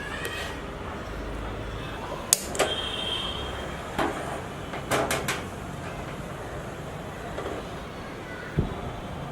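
Kitchen utensils and cookware knocking and clattering a few separate times, over a steady low background noise.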